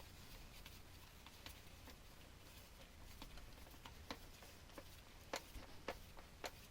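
Faint, irregular light clicks and taps over near silence, coming more often after about four seconds.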